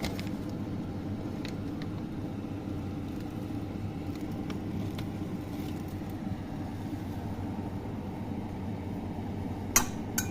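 Steady low rumble of a pot of garlic water boiling on the stove. Two sharp glass clinks come near the end.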